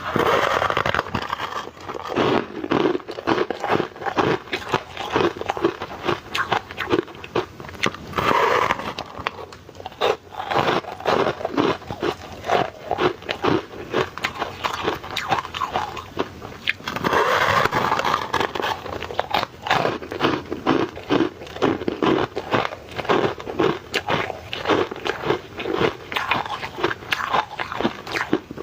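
Ice being bitten and chewed close to the microphone: dense, continuous crunching and crackling, with fresh loud bites at the start, about eight seconds in and about seventeen seconds in.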